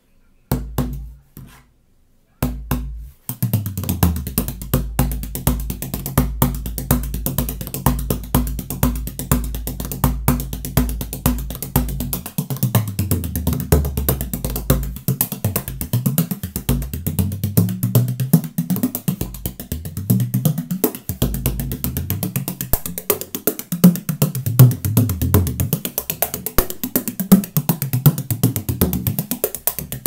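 16-inch Alfred Alfonso DaRed tunable bodhrán struck with a wooden tipper: two single strokes, then a fast, continuous trad rhythm of many strokes. From about twelve seconds in, the drum's deep tone bends up and down in pitch.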